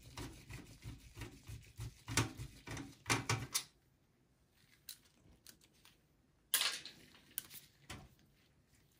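Screwdriver backing out a motherboard screw in a steel PC chassis: a quick run of small metallic clicks and knocks. It stops about three and a half seconds in, and after a short pause there is a brief clatter of handling against the metal case, followed by a few light ticks.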